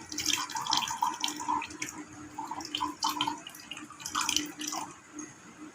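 Apple-peel water in a pot, splashing and gurgling irregularly with small ticks, over a faint steady low hum.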